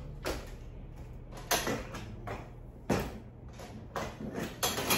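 Several separate knocks and clicks as a portable whiteboard easel's tripod legs and board frame are handled and fitted together during assembly.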